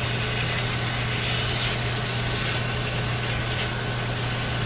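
New York strip steaks sizzling steadily as they brown in butter in a cast iron skillet, over a steady low hum.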